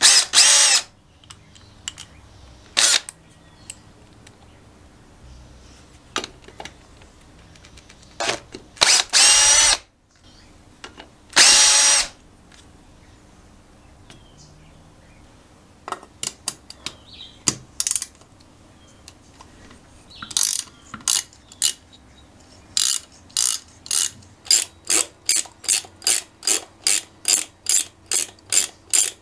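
Makita cordless drill-driver spinning bolts out of an engine case in several short whirring bursts. Then, from about sixteen seconds in, a ratcheting spanner clicks repeatedly, about two to three clicks a second, as another bolt is worked loose.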